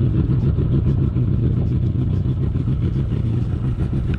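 Bass boat running at speed: outboard motor's steady drone with the rush of wind and water over the hull.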